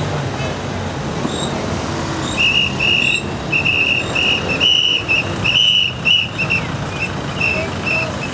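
A whistle blown in a long string of short, sharp blasts at one high pitch, a few a second, starting about two seconds in, over the general noise of a protesting crowd.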